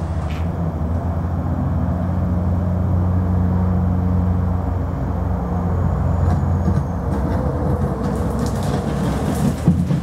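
Caterpillar skid steer's diesel engine running steadily as the machine drives in, with a few sharp cracks near the end.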